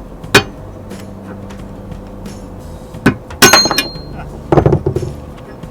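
Metal-on-metal hammer blows, struck with a makeshift tool, to free an old anchor swivel from its chain: one blow, then a quick run of ringing strikes about three seconds in and another run of blows a little later.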